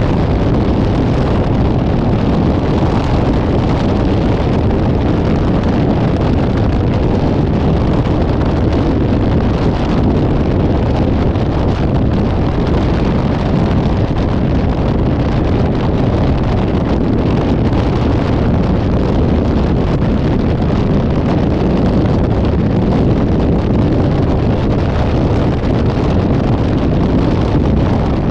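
Steady wind buffeting the microphone over the rumble of a moving vehicle on the road.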